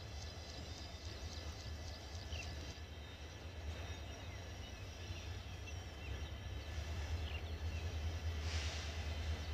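Outdoor ambience: a steady low rumble with scattered faint bird chirps, and a brief hiss near the end.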